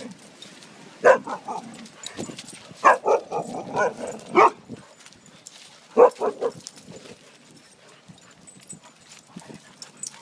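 Dogs barking in short bursts: a single bark about a second in, a quick run of barks from about three to four and a half seconds, and another run of three or four barks about six seconds in.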